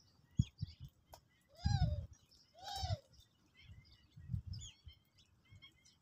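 A flock of sparrows chirping in short, scattered notes. Two louder, drawn-out calls that rise and fall in pitch come about two and three seconds in, and low rumbling bumps come and go.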